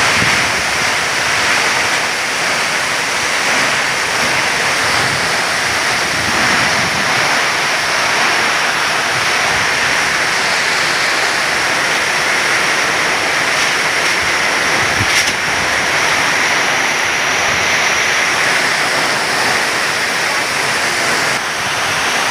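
Heavy rain and strong wind of a storm: a loud, steady hiss of pouring rain, with wind rushing through the trees.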